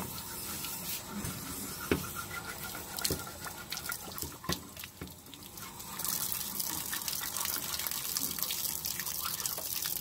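Water gushing out of the drain opening of an Atwood RV water heater tank during back-flushing with a garden-hose flush wand, splashing down the outside of the RV as it washes white scale out of the tank. The first half holds a few knocks and clicks over a lighter trickle; from about six seconds in the water comes as a steady rush.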